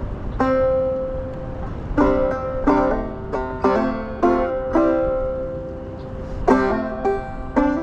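Solo banjo playing a song's introduction. A single plucked note rings out, then from about two seconds in picked notes and chords follow in an even rhythm, with a brief pause near the end before the picking resumes.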